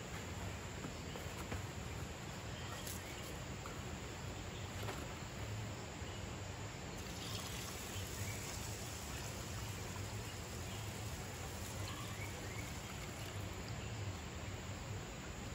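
Water poured from a stainless steel pan onto uncooked rice in a steel pot for a couple of seconds about halfway through. The steady rush of a shallow stream runs underneath throughout.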